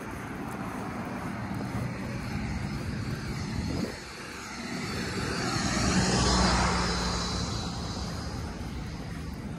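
A motor vehicle passing by, its noise building to a peak about six seconds in and then fading away.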